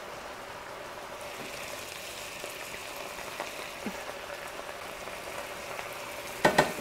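Steak bites in mushroom sauce sizzling steadily in an electric frying pan, with a few light clicks of the serving utensil against the plate and pan, and a couple of sharp knocks near the end.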